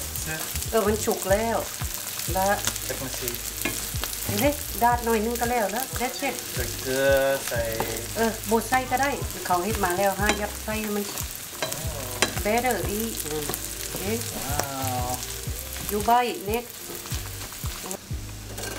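Silkworm pupae sizzling in hot oil in a frying pan while a spatula stirs and scrapes them around the pan in repeated strokes, about one a second.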